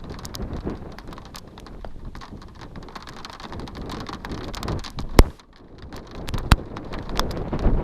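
Rain falling, with many single drops ticking sharply close to the microphone; one drop hit about five seconds in is much louder than the rest. Wind gusts rumble on the microphone underneath.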